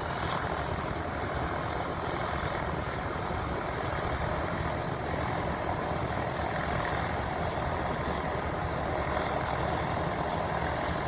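New Holland TR96 combine running steadily while its unloading auger empties the grain tank, a constant engine and machinery drone.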